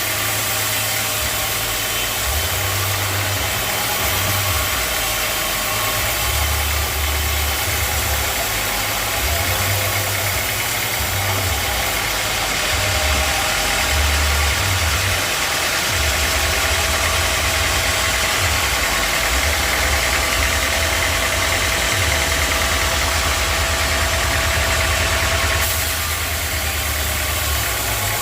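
Sawmill machinery running steadily: a motor-driven saw with a constant hum and whine over an uneven low throb. The high hiss drops a little near the end.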